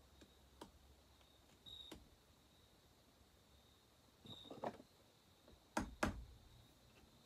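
Faint metallic clicks and taps of a steel pick working at a stuck piston-pin circlip, some with a brief high ring. A cluster of taps comes past the middle, then two sharp clicks in quick succession.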